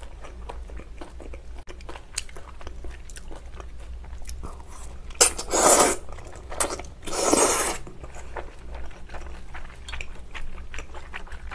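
A person chewing with small wet clicks, with two loud slurps of Chinese glass noodles, the first about five seconds in and the second about seven seconds in.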